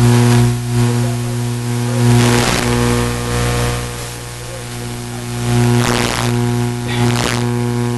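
Loud, steady electrical mains hum from the sound system: a low buzz with a stack of even overtones. A few short hissy bursts rise over it, about two and a half, six and seven seconds in.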